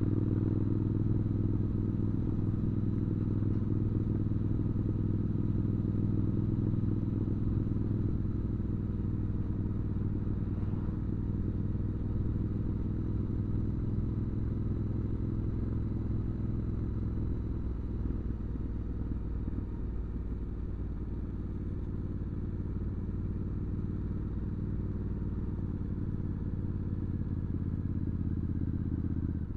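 Triumph Scrambler 900 parallel-twin with an aftermarket Arrow exhaust, cruising at a steady engine speed. It gives a low, even exhaust note that eases a little in the second half.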